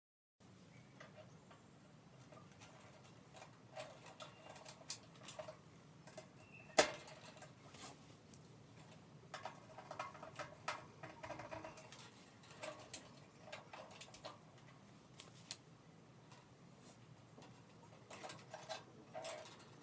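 Hands handling and twisting electrical wires at a fluorescent light fixture: faint rustling and small clicks as the wires brush the sheet-metal housing, with one sharper click about seven seconds in.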